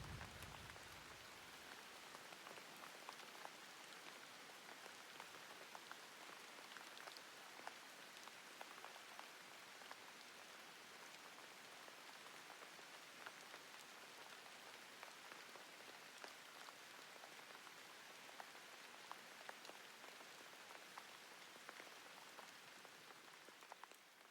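Near silence: a faint, even crackle with scattered soft ticks.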